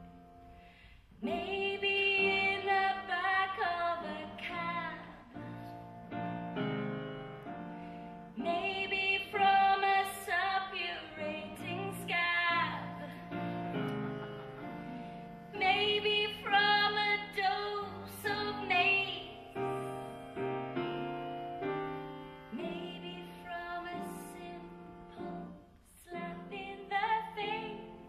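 Music: a woman singing over piano accompaniment, in phrases of held notes with brief pauses between them.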